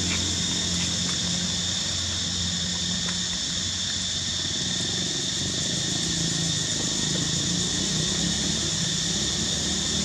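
Steady outdoor background: a continuous high-pitched insect drone over a low, steady engine hum.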